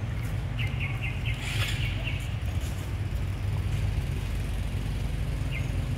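A steady low outdoor rumble, with a quick run of four short high chirps under a second in and a single chirp near the end.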